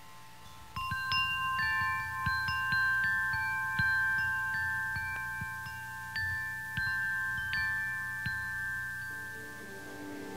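Bell-like chime tones struck one after another, about one to two a second, each ringing on and overlapping the next, with soft low knocks underneath. Near the end lower held tones begin to come in.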